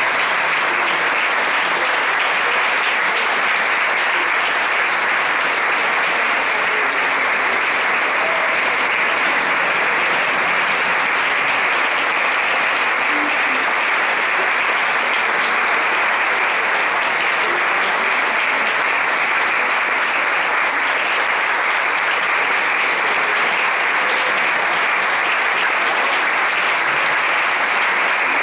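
Concert audience applauding steadily: dense, even clapping that holds at the same level throughout.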